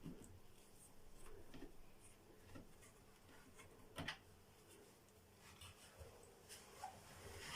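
Near silence with faint scattered clicks and light taps, and one sharper click about four seconds in.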